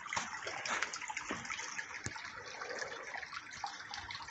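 Steady splash of running water, with scattered faint clicks and knocks.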